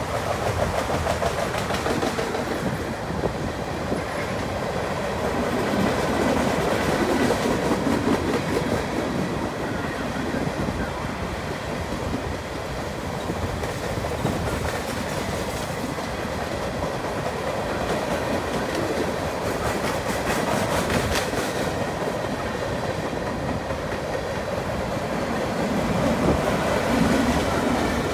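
Freight train cars (autoracks, tank cars and covered hoppers) rolling past at a steady speed: a continuous rush of steel wheels on rail, with repeated clicks as the wheels cross rail joints.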